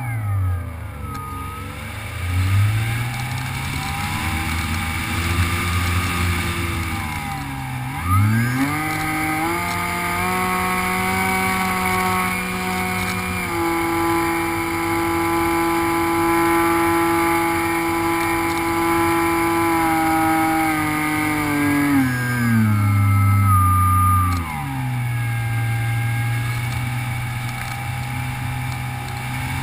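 Electric motor and propeller of an FPV Raptor RC plane whining in flight, picked up by the onboard camera, its pitch rising and falling with the throttle. It dips at the start, climbs about two seconds in, dips and surges sharply around eight seconds, holds high, then eases down over a few seconds near the end.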